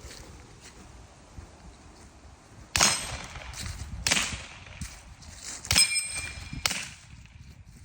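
Suppressed gunshots, four main cracks about a second apart starting a few seconds in, with fainter ones between. At least one is followed by a metallic ring, typical of a bullet striking a steel target.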